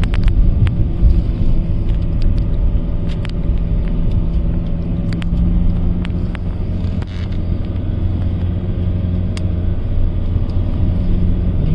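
Car engine and tyre noise heard from inside the cabin while driving: a steady low rumble with a constant hum and a few scattered light ticks.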